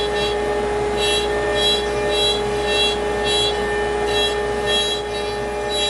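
CNC router spindle running at cutting speed with a steady whine while the bit roughs out a pocket in a wood block. A higher whine comes and goes about twice a second as the cutter moves back and forth.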